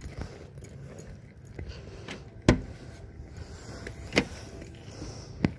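A car's rear hatch being unlatched and lifted open, with keys jangling: three sharp clicks or knocks, about two and a half, four and five and a half seconds in, the first the loudest.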